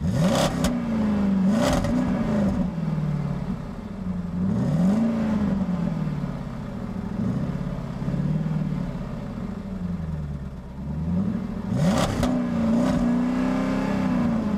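Cars accelerating away one after another. Their engine notes climb in pitch and then drop back again and again. There are a few sharp cracks near the start and again about twelve seconds in.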